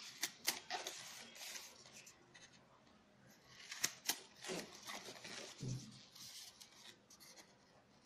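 Multi-blade kitchen scissors snipping a fringe into a folded sheet of sola wood: sharp snips, a pair near the start and another pair about four seconds in, between stretches of rasping cutting noise. The scissors are new and do not cut easily yet.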